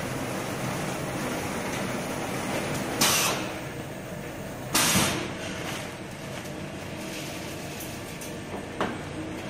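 Powder weighing and bagging machine running with a steady hum, with two short bursts of hiss about three and five seconds in and a brief click near the end.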